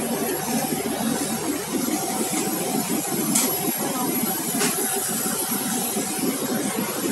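Steady drone of engines running on an airport apron, with two short clicks about three and a half and four and a half seconds in.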